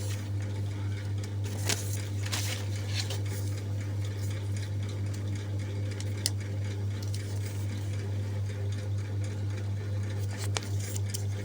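Papers and packaging being handled while unpacking the box: a few light rustles and clicks over a steady low hum.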